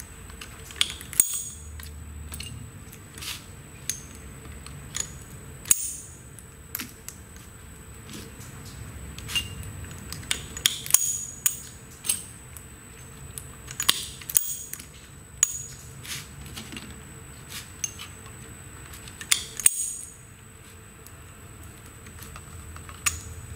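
Irregular sharp clicks and clinks of the valve seat puller head's jaw segments knocking against each other and the housing as they are worked by hand into the O-ring and the inner housing, sometimes several in quick succession.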